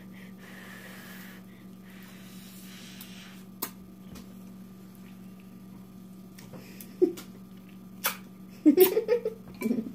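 Ramen noodles being slurped up through the lips, with a few sharp clicks and brief vocal sounds near the end, over a steady low hum.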